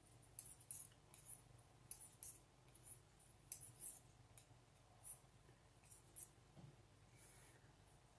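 Knitting needles clicking faintly as stitches are knitted along a row: light, unevenly spaced clicks, about one or two a second.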